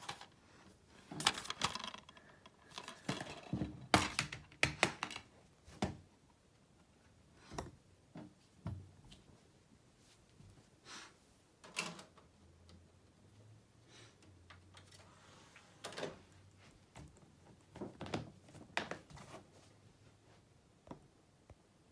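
Plastic DVD case being handled: a string of sharp clicks and knocks, loudest and most frequent in the first five seconds, then sparser taps, with a faint low hum in the middle stretch.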